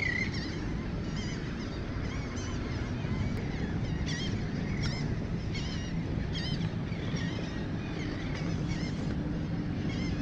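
Birds calling: many short, high, wavering calls, several a second, over a steady low rush of wind and water.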